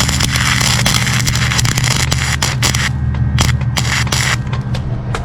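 Small welder's arc crackling and hissing, breaking into short separate sputters about three seconds in, over a steady low hum.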